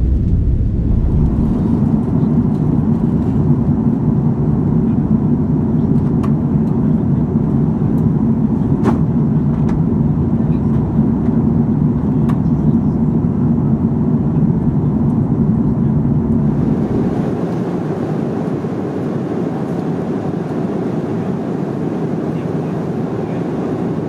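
Airliner cabin noise at a window seat of an Airbus A330-300 in flight: the steady rumble of the engines and rush of air while climbing out. About two-thirds through, the deep rumble falls away and the rush turns brighter and thinner. A few faint clicks sound over it.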